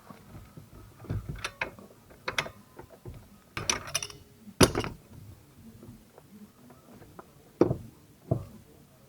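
Irregular metallic clicks and clunks of hand tools and the steering column being handled as the column is unbolted and taken out of the car, with the sharpest knock about halfway through.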